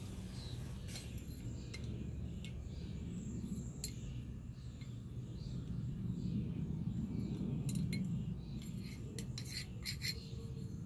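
Art supplies being handled: scattered light clicks and clinks of a paintbrush against a glass rinse cup and paint bottles in a plastic bin, most of them near the end, over a steady low rumble.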